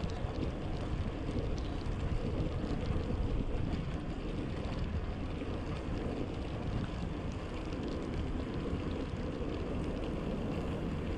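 Wind buffeting the microphone while cycling in the rain, over a steady wet rushing hiss, with faint scattered ticks.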